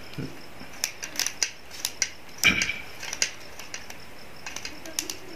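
Number wheels of a five-digit combination steering-wheel lock being rolled by thumb back to zero, giving irregular small clicks as they step from digit to digit. There is a louder knock about halfway, and the clicks thin out toward the end.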